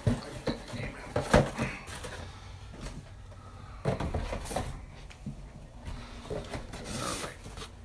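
Cardboard Funko Pop boxes being handled and set down into a larger box: scattered knocks and rustling, with the sharpest knock a little over a second in and another cluster of knocks about four seconds in.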